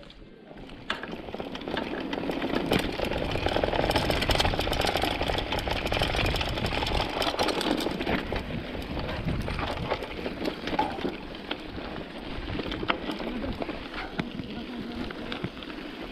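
Mountain bike rolling down a dirt trail: wind rushing over the helmet camera's microphone and tyres on dirt and gravel, with the bike clattering over bumps. It picks up about a second in.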